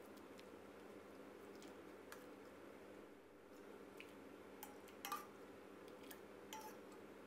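Faint clinks and taps of a steel ladle against a glass bowl as soup is served, over a low steady hum. The clearest knock, with a short ring, comes about five seconds in.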